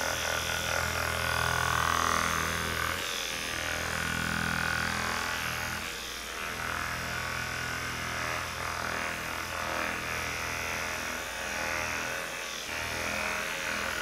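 Hypervolt percussion massage gun running, hammering on the muscles of the upper back and neck, its steady buzzing hum dipping briefly a few times as it is lifted and moved along the muscle.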